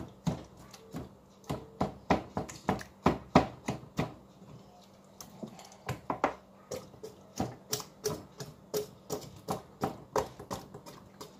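A kitchen knife stabbing again and again into a raw whole chicken: a run of sharp, uneven taps at a few a second, with a short lull near the middle. The chicken is being pierced so the seasoning can marinate into it.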